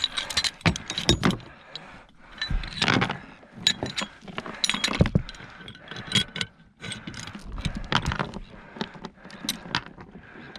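Irregular clattering knocks and light metallic rattles, coming in quick clusters and isolated hits at uneven intervals.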